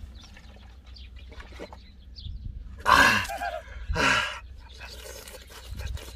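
A man's voice letting out two loud, strained outbursts about three and four seconds in, over a low steady rumble. It is his reaction to the burn of extremely spicy ramen.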